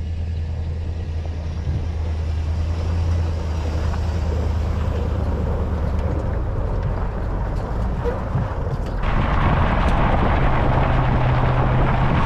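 Tow vehicle's engine running at a steady low drone while hauling a no-till drill on the road. About nine seconds in, a louder rushing noise of wind and road joins it.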